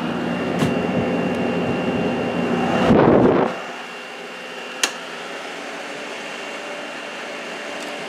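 2017 5,000 BTU Kool King window air conditioner running on low fan with its compressor on, a steady hum of fan and compressor. About three seconds in the sound swells, then drops suddenly to a quieter steady rush of air, with a single click near five seconds.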